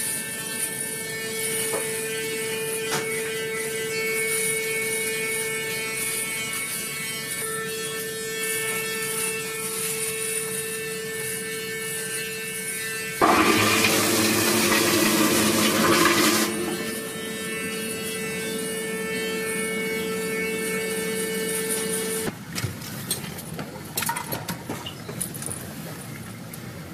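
Electric razor buzzing steadily as a man shaves. About 13 seconds in a louder rushing noise comes in for around three seconds, and after about 22 seconds the buzz stops, leaving light knocks and clatter.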